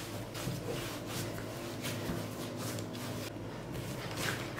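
Hands kneading soft dough on a floured silicone pastry mat: faint rubbing and pressing strokes, a few each second.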